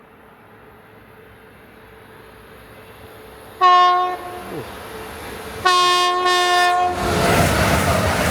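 A train approaching at speed sounds its horn twice, a short blast then a longer one. It then passes close by with a loud rush of wheel and engine noise.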